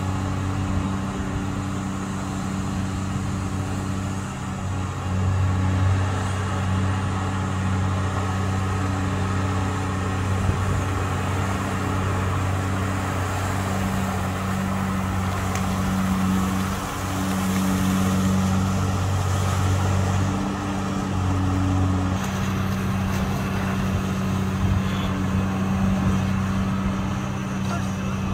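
Diesel engine of a long-reach dredging excavator on a pontoon running steadily under hydraulic load as it works the bucket, a low hum that swells and eases a few times.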